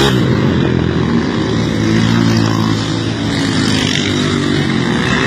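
Motorcycle engine running and revving, its pitch rising and falling as the throttle is worked for stunt riding.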